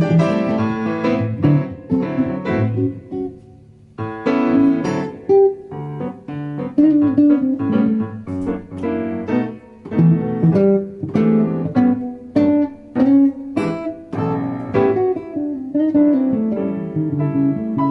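Instrumental blues on guitar with piano, a run of plucked single notes and chords. The playing thins out and fades about three seconds in, then comes back in with a sharp attack about a second later.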